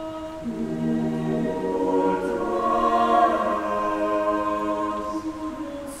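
Background music: a choir singing held, slowly shifting chords that swell to their loudest about halfway through.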